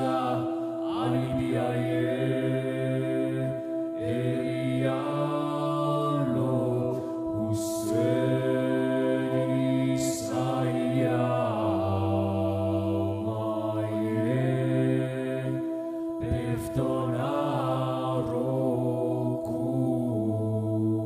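Chant-like vocal music: voices in slow gliding, changing phrases over a steady held drone, with a few brief sharp accents.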